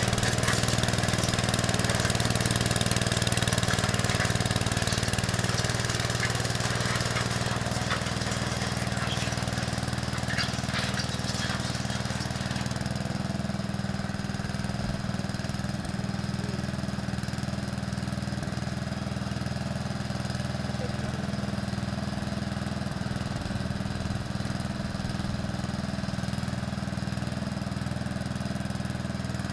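Small engine of a homemade screw-drive vehicle running steadily at idle, settling a little quieter about six seconds in.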